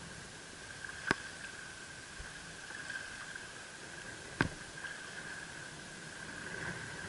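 Steady outdoor hiss of wind and sea on the microphone, with a faint steady whine, broken by two sharp clicks about a second and about four and a half seconds in.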